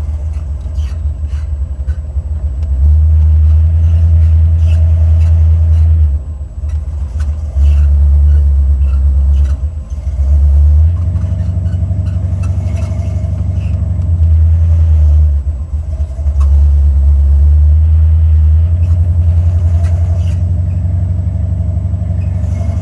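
Cabin drone of a Buick Regal's Stage-1 455 V8 under way: a heavy low rumble that swells loud for a few seconds at a time and eases back, several times over.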